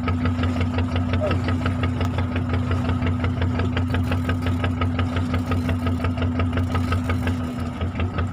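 Fishing boat's engine running steadily, a low hum with a fast even knock of about seven beats a second. The beat turns a little rougher near the end.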